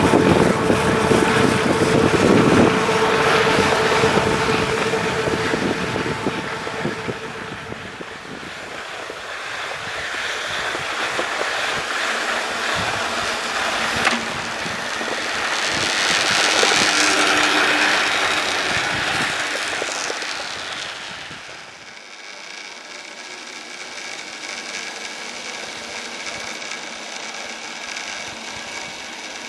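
Städeli surface ski lift heard from a rider: the haul rope running over the tower sheave rollers with a rumbling whine that swells as the rider passes under a tower, at the start and again about halfway through. It drops to a quieter steady sound near the end.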